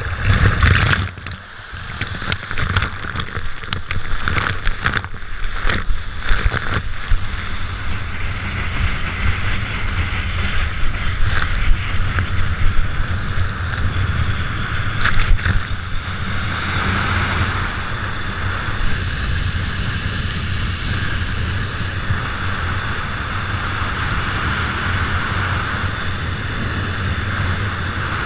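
Water rushing and spraying at speed as a barefoot water skier is towed across the lake, with wind buffeting the microphone. Dense crackling splashes against the camera for the first several seconds, settling into a steady rush of spray as he skims along on his feet.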